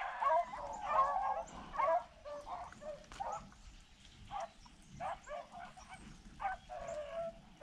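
A pack of rabbit hounds baying and yelping on a rabbit's trail: many short, overlapping calls that come irregularly, fairly faint. The dogs are giving tongue while running the rabbit's scent.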